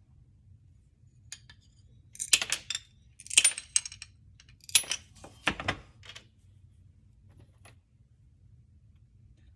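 Four short bursts of crisp metallic clicking and rattling, as small metal craft tools are handled, each burst about a second after the last.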